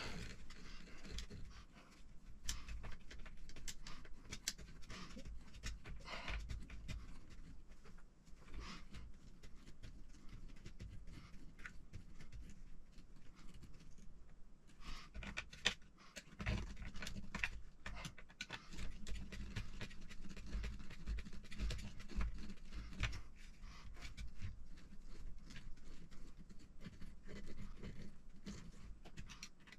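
Small screws being driven with a hand hex driver into the plastic rear bulkhead and shock tower of an RC truck kit: scattered light clicks and scrapes of tool and parts being handled.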